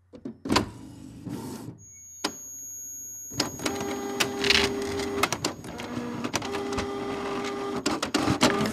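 All-in-one printer working: a sharp click about half a second in, then busy mechanical clicking and whirring with two spells of a steady motor hum.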